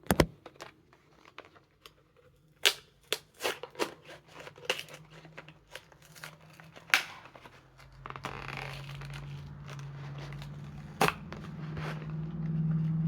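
Card-and-plastic blister packaging of a die-cast toy car being torn and pried open: a run of separate sharp cracks, snaps and tearing. About two-thirds of the way in, a steady low hum comes in under the last snaps.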